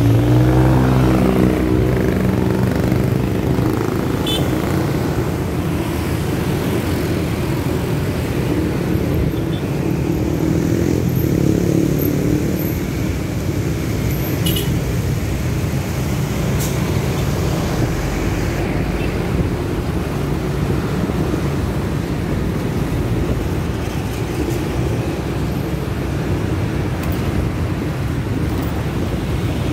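Busy street traffic: vehicle engines and a steady road rumble, with an engine speeding up, its pitch rising, at the start and again about ten seconds in.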